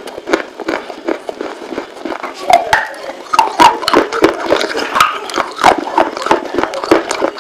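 Baked terracotta claypot being bitten and chewed: a fast, irregular run of sharp crunches and crackles.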